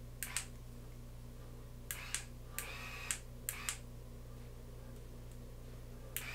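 Hair and a rotating curling iron being handled: a few clusters of short rustles and clicks over a faint, steady low hum.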